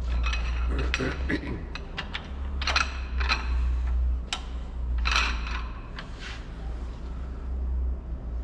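Metal clicks and short ratcheting rattles from a torque wrench, socket and angle gauge being handled and fitted onto the main-bearing cap bolts of a Volvo D13 engine block, over a steady low hum.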